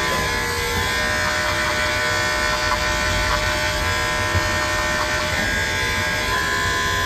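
Corded electric dog clippers running with a steady buzz as they trim a poodle's curly coat near the ear.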